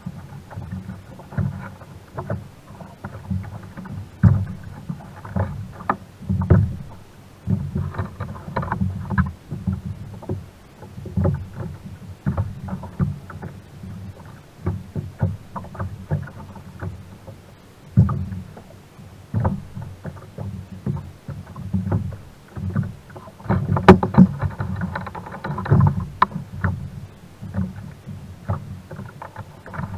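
Water lapping and slapping against the plastic hull of a sit-on-top kayak, with irregular knocks and thumps of gear being handled on the hull, carried through the camera fixed to the kayak. The knocks come several times a second, with a louder cluster near the end.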